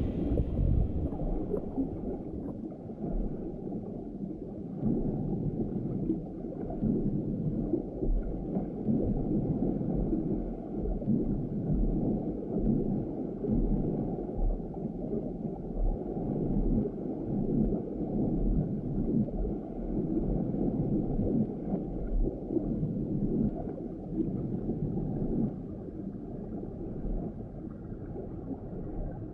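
Muffled underwater churning and gurgling of water, dull and low, swelling and ebbing every second or two. The tail of a splash into the water fades in the first second.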